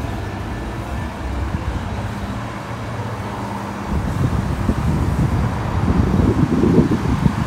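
Street traffic noise: a steady low engine hum from road vehicles. About halfway in it gives way to a louder, irregular low rumble that grows toward the end, like wind buffeting the microphone.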